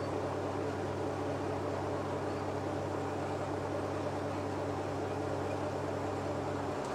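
Diesel railcar engine idling while the train stands, a steady low hum.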